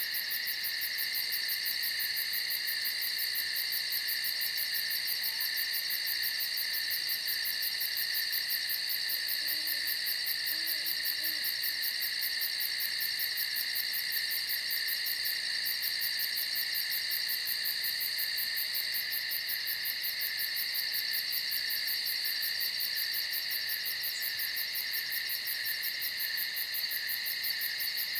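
Steady night chorus of crickets and other insects, a dense high shrilling with a fast pulse, with a faint owl hoot about ten seconds in.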